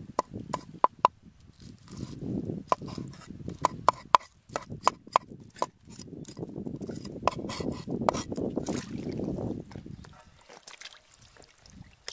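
Large knife scraping scales off a whole fish on a wooden chopping board: repeated scraping strokes with many sharp clicks of the blade, quieter in the last couple of seconds.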